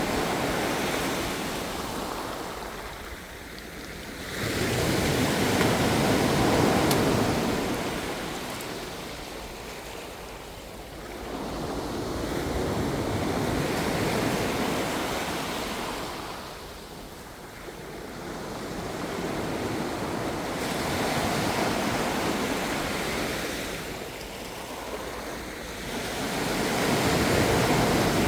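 Ocean surf: waves breaking and rushing in slow surges, one swell every six or seven seconds, with a softer wash of water between them.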